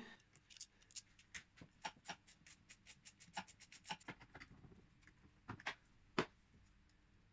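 Faint, irregular clicks and light metallic taps of a hand wrench as a 15 mm bolt is undone on a timing-belt idler, with one sharper knock about six seconds in.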